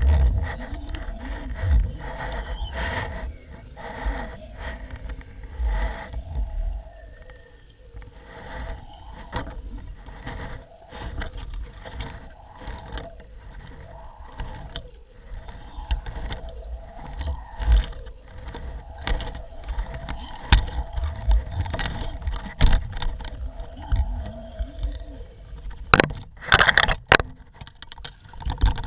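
Wind buffeting the microphone of an action camera hanging from a kite line, with irregular knocks and scrapes from the swinging camera rig. A few sharp clatters near the end as the camera is handled back into the boat.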